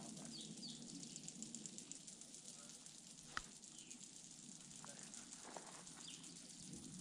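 Faint, rapid, dry clicking of insects in the trees, taken for click beetles, with a sharper single click about three and a half seconds in and a few short high chirps.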